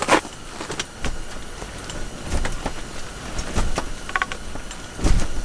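Gusty blizzard wind buffeting the microphone, with scattered knocks and clicks.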